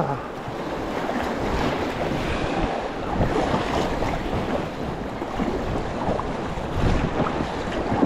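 Whitewater river rapids rushing, with steady splashing throughout.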